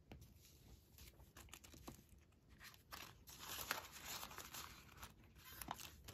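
Faint rustling and crinkling of paper banknotes and a clear plastic binder pocket as cash is handled and tucked into a cash-envelope binder, with a few small clicks and taps. The rustling is busiest in the middle.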